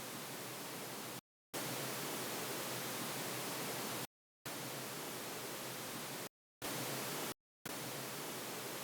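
Pink-noise test signal from the THX Optimizer audio test, played in separate bursts of roughly one to three seconds. Each burst starts and stops abruptly with a brief silence between, the signal used to check and set the level of each speaker in turn.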